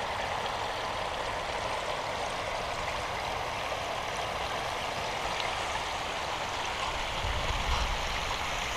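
Steady rush of water spilling over a swimming pool's tiled overflow edge into its gutter. A low rumble joins in near the end.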